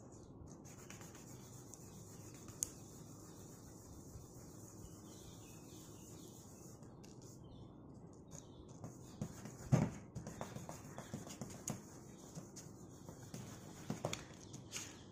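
Faint rubbing and scratching of raw peanut kernels being rubbed on white paper, with one sharp tick a few seconds in and a louder knock followed by rustling just short of halfway through.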